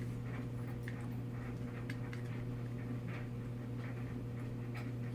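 Faint irregular clicks and scrapes of small screwdrivers and fingers handling a camera's casing and screws, over a steady low electrical hum.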